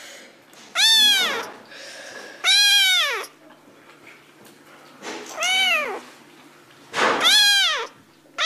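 Kitten meowing four times, loud high-pitched meows spaced about a second and a half to two seconds apart, each rising and then falling in pitch.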